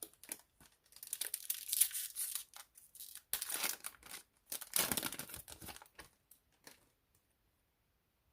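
A trading-card pack's foil wrapper being torn open and crinkled, in three spells of ripping and rustling.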